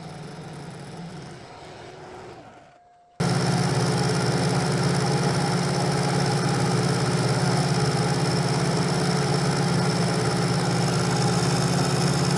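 Kearney & Trecker milling machine running, its end mill taking a light cut along the step of a hold-down clamp. Quieter at first and fading about three seconds in, then suddenly much louder and steady, with a constant hum.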